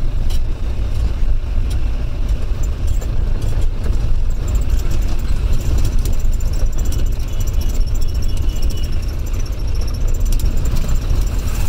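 A taxi's engine and road noise heard from inside the cabin while it drives: a steady low rumble.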